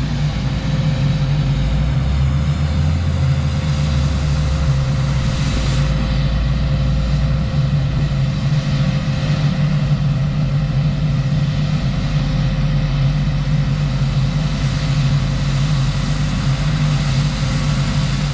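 Heavy diesel farm machinery running steadily under load, a low engine hum with a thin steady whine above it.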